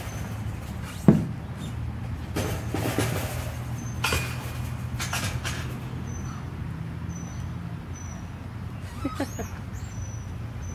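Rustling and handling noise close to the microphone, with a sharp knock about a second in and scattered scuffs after it, over a steady low hum. Short faint high chirps recur.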